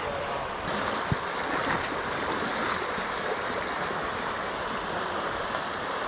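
River current rushing steadily over rocks, with one short knock about a second in.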